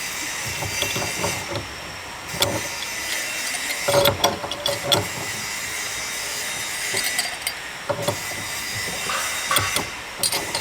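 Scattered clinks and knocks of hand work over a steady noisy background, with a busier cluster of knocks about four seconds in.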